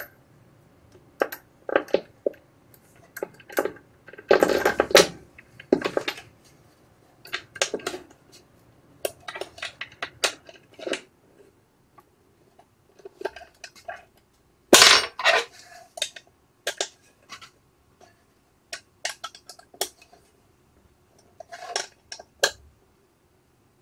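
Irregular metallic clicks and clinks of an Allen key turning a screw into the Z-axis bottom bearing block on a metal 3D printer frame. There are louder clatters about five seconds in and again about fifteen seconds in.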